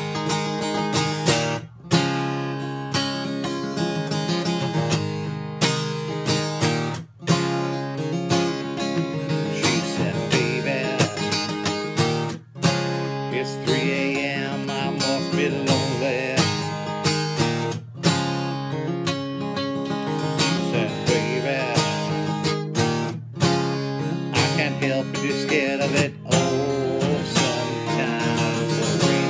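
Acoustic guitar strummed steadily in a chord progression, with a few brief breaks between strums.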